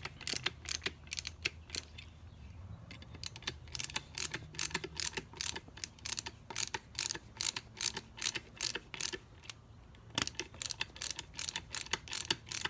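Quick runs of sharp clicks, a few a second, from hand work on a 722.6 transmission valve body, with small parts and tools clicking as valves and their springs are handled. A faint steady low hum lies underneath.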